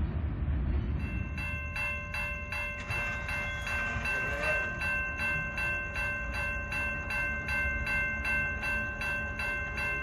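Railroad grade-crossing warning bell ringing steadily at about three strokes a second, starting about a second in, over a low rumble.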